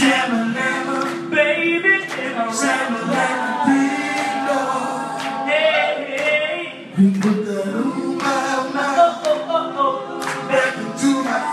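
Several voices singing held notes in harmony, with occasional sharp hits through the music.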